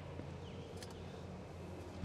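Steady low background hum, with a light click and a couple of faint, short, high chirps.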